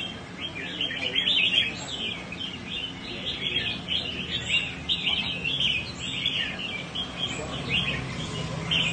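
Several caged songbirds singing over one another in quick, overlapping chirping phrases without a break, with a faint low hum underneath.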